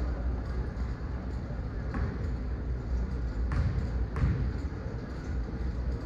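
A basketball bouncing on a court three times, as sharp knocks about two, three and a half and four seconds in, over a low steady rumble and the murmur of spectators.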